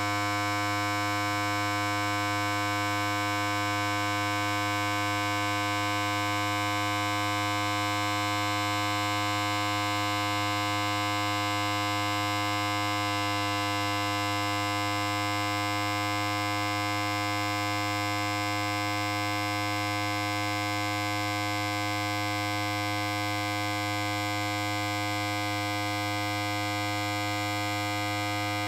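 Electric hair clipper running continuously with a steady, even buzz.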